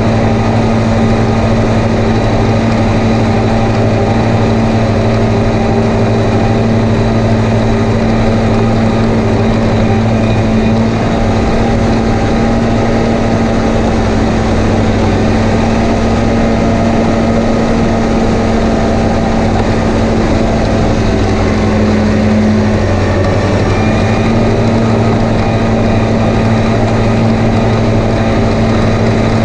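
Tractor engine running steadily under load as it drives front and rear mowers through the PTO while mowing grass.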